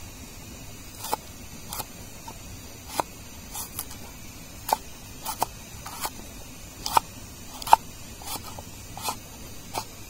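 Long machete-style knife chopping slices off a fresh root held in the hand over a wooden mortar: about a dozen sharp, irregular chops, roughly one a second, some coming in quick pairs.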